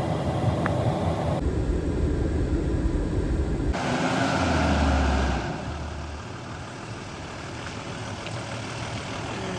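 RV engine idling, steady, with a louder swell of noise lasting about a second and a half, starting around four seconds in.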